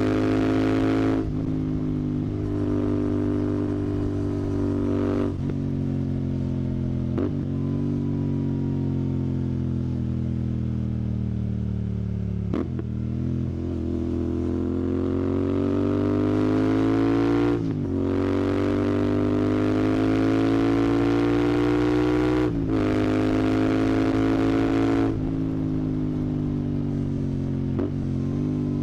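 Royal Enfield Continental GT 650's 648 cc parallel-twin engine running through a Red Rooster aftermarket exhaust while riding. The revs climb and drop, with several gear changes heard as brief breaks in the exhaust note.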